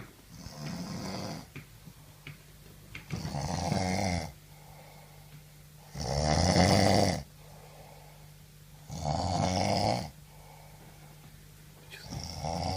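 A man snoring in deep sleep: five loud snores about three seconds apart, the third the loudest.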